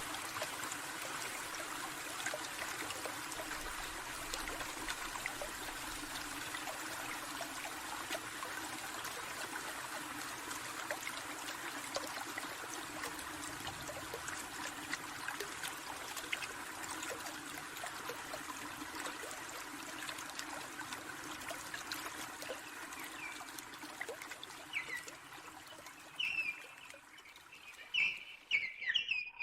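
Small forest stream trickling and babbling steadily. It fades away in the last few seconds as a bird begins chirping near the end.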